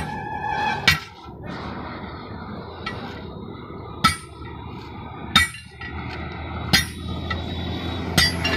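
Six sharp metal clangs, about one every second and a half, as steel tyre levers are struck and worked against a truck tyre's rim to prise the bead.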